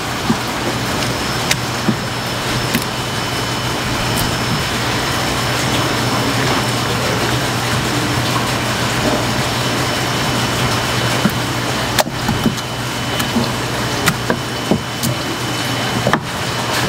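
Steady rushing background noise with a low hum, with a few sharp clicks of a knife against a plastic cutting board as a squid is sliced for sashimi.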